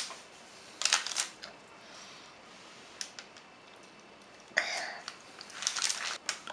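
Light clicks and taps of small hard objects being handled, a few scattered times, with a short rustle about four and a half seconds in.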